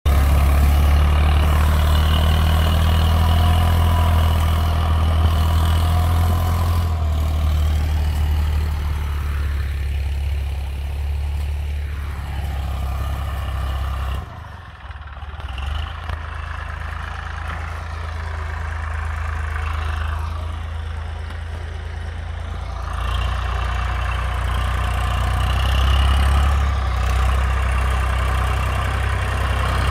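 Diesel farm tractor engine running steadily as it ploughs with a rear-mounted tiller, a deep low drone. It drops and grows fainter about halfway through, then swells again near the end.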